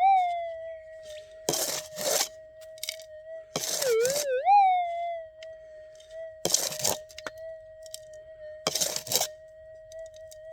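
Minelab gold detector's steady threshold hum, broken four times by crunching scrapes of gravelly soil being scooped and shaken. Near the start and again about four seconds in, the tone dips and then swings up in pitch: the detector's response as the nugget in the dirt passes over the coil.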